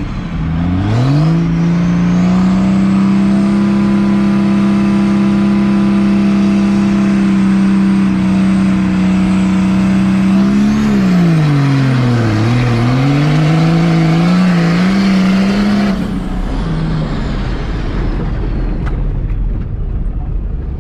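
Diesel drag-racing engine revving up and held at high, steady revs for about ten seconds, then dropping sharply and climbing back up before cutting off about sixteen seconds in.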